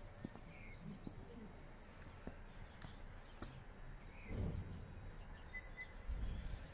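Outdoor ambience: a few faint, short bird chirps over a low rumble of background noise, with scattered light clicks.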